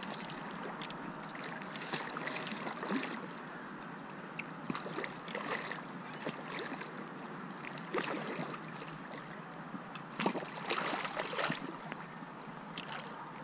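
River water splashing and lapping close by, with irregular splashes and knocks, a busier cluster of them about ten seconds in.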